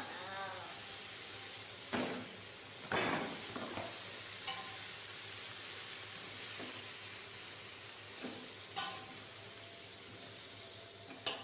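Water spinach sizzling in a hot wok as it is stir-fried, the sizzle slowly dying down. A metal spatula knocks and scrapes against the wok a few times.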